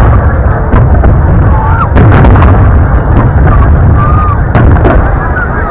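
Aerial firework shells bursting in a loud string of sharp bangs, with a quick run of three about two seconds in and another pair near the end, over a continuous low rumble of the booms.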